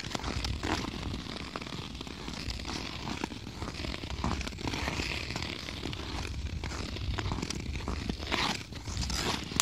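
Ice skate blades scraping and crunching through a thin layer of snow on frozen ice, stride after stride, with a few louder pushes near the end and a low rumble underneath.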